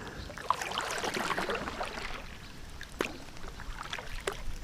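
Water splashing and trickling at the side of a kayak, strongest in the first half, with a few sharp knocks scattered through it.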